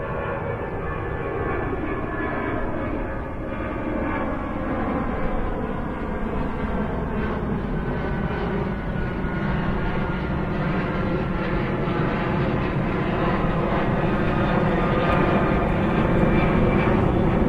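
Persistent mechanical hum: a steady engine-like drone with several held tones over a low rumble, slowly growing louder.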